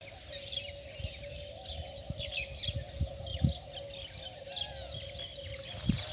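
Small birds chirping and twittering rapidly over a steady hum, with a few soft low thumps.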